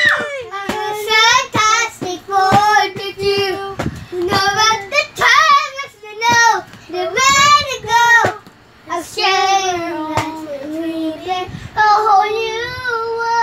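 Young children singing without accompaniment, high voices in short phrases with brief pauses, ending on a long held note.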